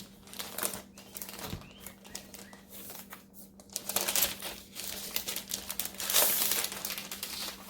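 Packaging crinkling and rustling as a new laptop is lifted out of its box, in a run of short rustles and clicks with two louder bursts of crinkling about four and six seconds in.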